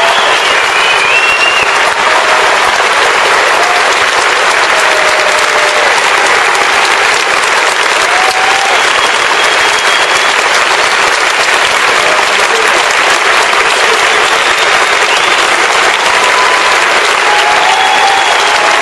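Large auditorium audience of some three thousand giving a standing ovation: dense, steady applause that holds throughout.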